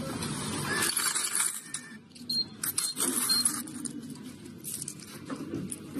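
Coins clinking and rattling in the change tray of an automatic coin change machine as the change is scooped out by hand. Two pairs of short, high beeps come in at about two and three seconds.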